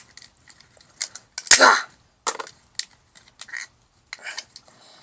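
Sharp clicks, snaps and short scrapes of a smashed phone's plastic casing and cracked glass being pried at, with a louder crunching scrape about one and a half seconds in.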